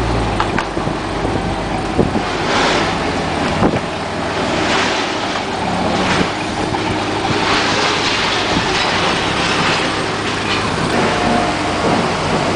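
Forklift engine running as it drives with a loaded pallet, with several brief bursts of hiss over it.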